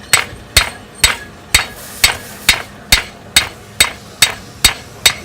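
Blacksmith's hammer striking hot steel on an anvil in an even rhythm of about two blows a second, each blow with a short metallic ring: flattening a forged leaf to take out the peen marks.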